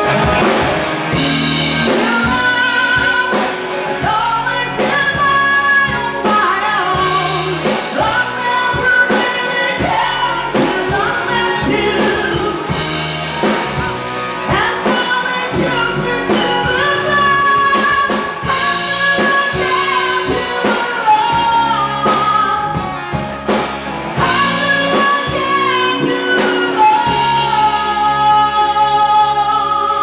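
Live band music: a man singing a song to electric bass and drums.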